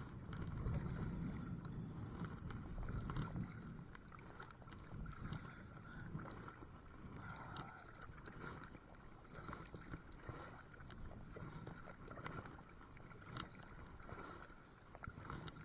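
Muffled sounds of a kayak being paddled, with water noise and wind buffeting the microphone, heaviest in the first few seconds, and a few light knocks. The camera case over the microphone dulls everything.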